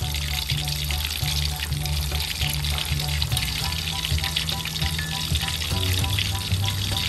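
Chicken pieces deep-frying in hot oil in a wok, a steady crackling sizzle.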